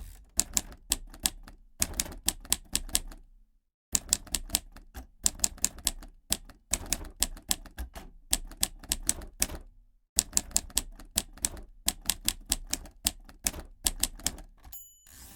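Old manual typewriter keys striking in quick runs of sharp clicks, broken by two short pauses. Near the end the margin bell dings and the carriage is pushed back with a short scraping rush.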